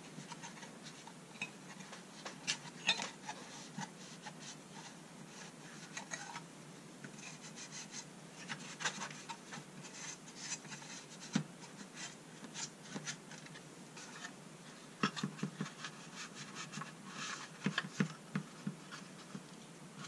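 A cloth rubbing and scraping over the bare sheet-steel tray of an old tin tool box, with irregular light clicks and taps as the metal tray is handled and turned.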